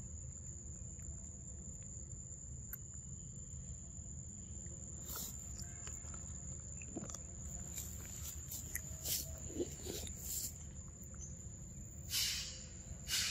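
A macaque eating a mango, with scattered wet smacks and chewing clicks, thickest from about eight to ten seconds in and again near the end. Under it run a steady low hum and a steady high, thin insect tone.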